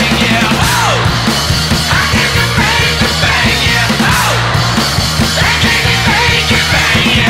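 Loud rock music with a steady driving beat.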